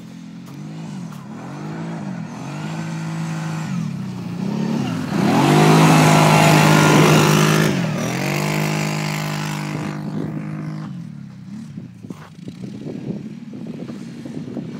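ATV engine revving hard as the quad is driven around on the ice, its pitch climbing and dropping again and again. It is loudest as it passes close, about five to eight seconds in, then fades as it drives away.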